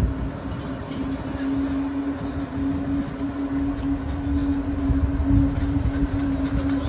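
Large motor yacht's machinery running while docking: a steady hum over an uneven low rumble.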